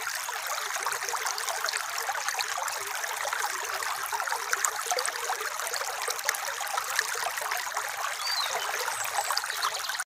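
Shallow stream trickling and babbling over pebbles: a steady water sound dotted with many small splashes.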